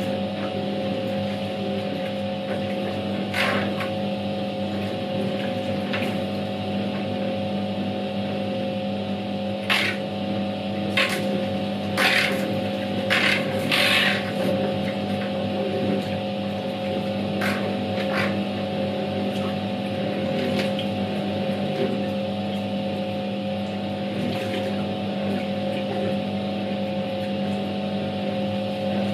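Światowit M4 impeller washing machine running a wash: its EDA SED-110-4 capacitor-run motor hums steadily while the impeller churns the laundry through the water. Louder sloshes come now and then, several close together about ten to fourteen seconds in.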